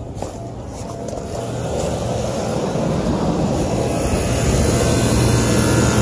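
Air-conditioning condensing unit running just after start-up: condenser fan and compressor make a steady rushing noise over a low hum, which grows louder over the first few seconds and then holds.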